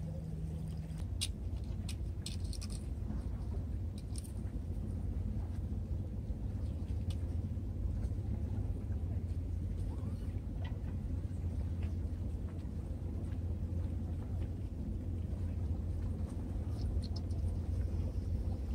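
Steady low rumble of wind on the microphone in the open air, with a few faint clicks scattered through.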